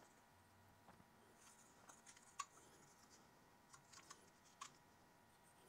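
Faint handling sounds of white thread seal tape being pulled off its roll and wrapped around the brass threads of a push-fit male adapter: a soft rustle with a few light clicks, one about two and a half seconds in and a small cluster near four seconds.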